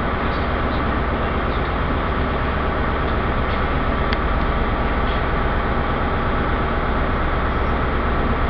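Class 43 HST power car diesel engine running with a steady drone as the train draws slowly into the platform.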